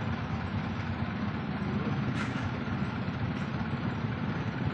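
Dump truck engine running steadily at idle while the raised bed tips out its load of rocks, with a sharp knock about two seconds in.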